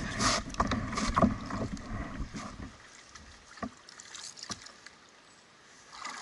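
Knocks and scrapes from a canoe being worked through a tight spot on a small river. They come thick for the first two and a half seconds, then only a couple of single knocks.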